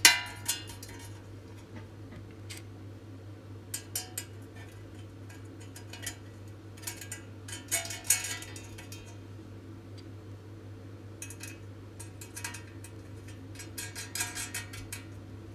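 Steel nuts being put on by hand onto bolts inside a thin stainless-steel stove shell: scattered light metallic clicks, clinks and scrapes. The loudest clinks come right at the start and around eight seconds in, over a steady low hum.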